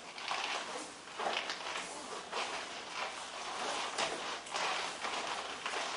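Karate sparring: bare feet stepping and scuffing on the dojo floor, with irregular short thuds of strikes and the rustle of gi.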